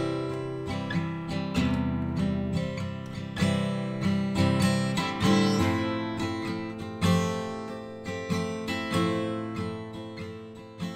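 Acoustic guitar music: strummed and picked chords, each struck and left to ring, fading near the end.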